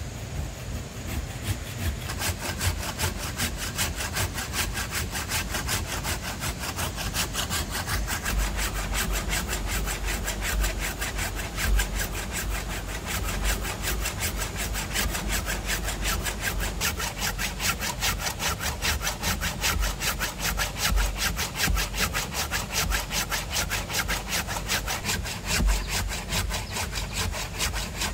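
Hand saw cutting through wood in quick, even back-and-forth strokes, starting about a second in.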